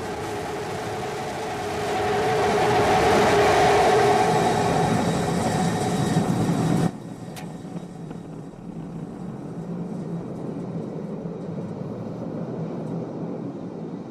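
Starship SN15's Raptor rocket engine firing on its landing burn: a loud, steady rushing roar with a low hum, swelling about two seconds in, then cutting off abruptly about seven seconds in. A quieter steady rumble follows.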